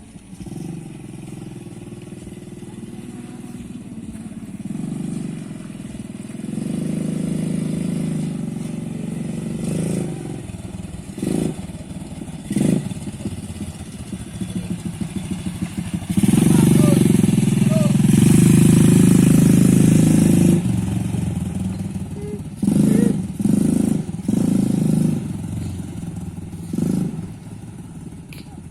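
Small ATV engine running and revving. It swells to its loudest for a few seconds past the middle, with several short bursts of throttle before and after.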